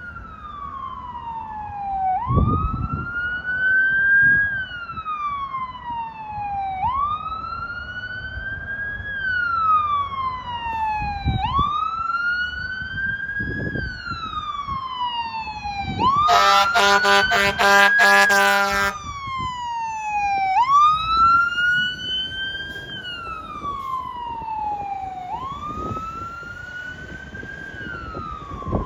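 Fire rescue truck's siren wailing, its pitch rising quickly and sliding slowly down about every four and a half seconds. About sixteen seconds in, the truck's air horn sounds for about two and a half seconds in quick stuttering blasts, the loudest part.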